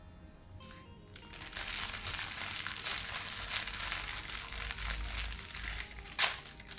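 Plastic wrapper of a scouring-pad package crinkling for several seconds as gloved hands work it open, ending in one sharp, loud crackle near the end.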